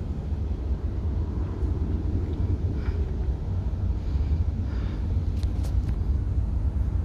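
A steady low rumble of jet aircraft engines at a distance, with a few faint ticks in the second half.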